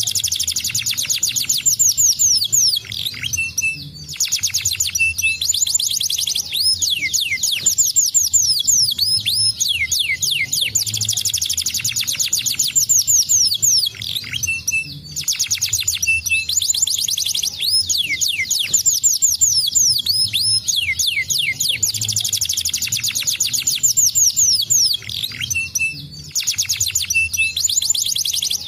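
Domestic canary singing: long rolls of fast repeated high notes and quick sweeping trills, broken by short pauses every few seconds.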